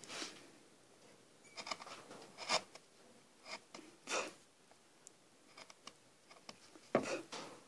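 Hand chisel paring and slicing into wood, a series of short scraping cuts at irregular intervals, the loudest about seven seconds in.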